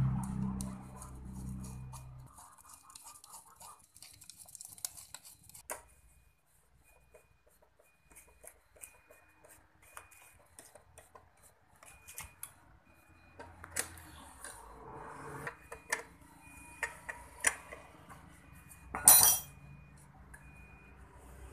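Scattered metallic clicks and clinks of hand tools and small carburettor parts being handled and fitted, with one sharper, louder clatter about nineteen seconds in.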